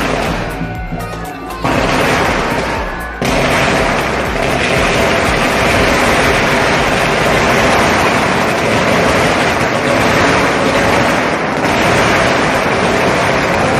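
Strings of firecrackers going off in a continuous dense crackle of rapid pops. The crackle thins briefly about a second in, then comes back at full density about three seconds in, with music playing underneath.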